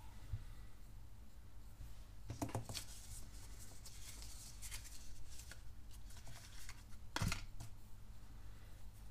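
Small plastic clicks and rustling as a Xiaomi pen and its ink refills are handled and taken apart, with a sharper click-knock about seven seconds in, over a low steady hum.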